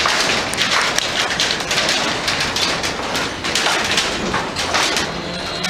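Strong wind blowing against the microphone: a loud, rushing noise with irregular crackling gusts.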